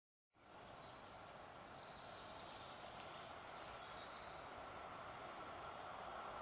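Faint steady rumble of a distant PKP EN57AL electric multiple unit approaching along the track, slowly growing louder, with a few faint bird chirps. The sound cuts in just after the start.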